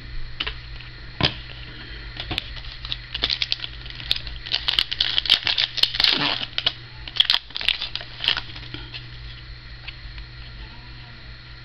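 Foil trading-card pack wrapper being torn open and crinkled, with sharp clicks from the cards being handled, in a busy run of crackling from about half a second in to about eight seconds in, over a steady low hum.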